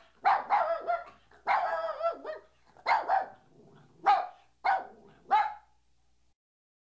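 A dog barking and yowling in a string of about eight short, pitched calls, some with a wavering pitch, that stop shortly before the end.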